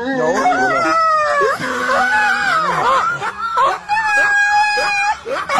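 A dog howling in long, wavering cries that glide up and down in pitch, ending on a steadier held note.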